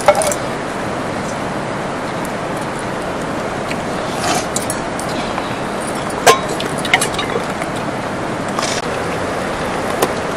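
Steady rushing of a river, with a few sharp clinks of steel plates and bowls, the loudest just at the start and about six seconds in.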